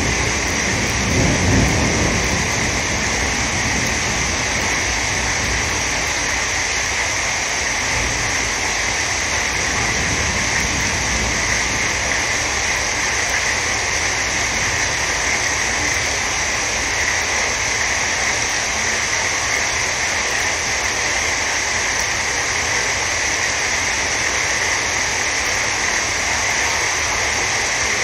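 Heavy rain pouring steadily onto a flooded street, a dense, even hiss of rain and running water. A low rumble dies away in the first couple of seconds.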